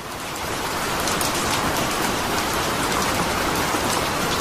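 Steady rain falling, fading in over the first second, with a few sharper individual drop hits standing out from the hiss.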